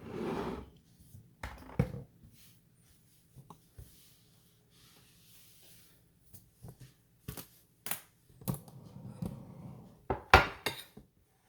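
Handling noise from a camera being adjusted: scattered light clicks and knocks with soft rustling, a quiet stretch in the middle, and two sharp clicks near the end, which are the loudest sounds.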